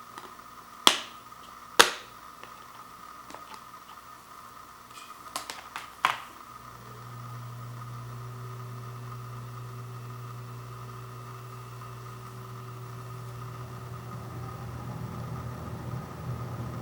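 Sharp plastic clicks of a Blu-ray case being handled: two about a second apart, then a short cluster around six seconds in. After that a steady low hum comes in and holds.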